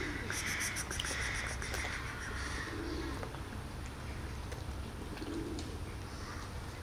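Outdoor birdsong: a dove cooing low in three short coos a few seconds apart, with a run of higher bird chirps in the first couple of seconds.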